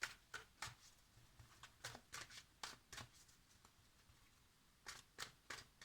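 Tarot cards being handled: faint, scattered light taps and flicks of cards. They come in a cluster over the first three seconds and a few more about five seconds in.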